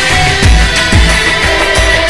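Background music with a steady beat of deep drum hits under sustained tones.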